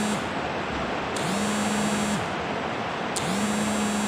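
Heavy rain falling steadily, a dense hiss heard from inside the house. A low hum comes on for about a second roughly every two seconds.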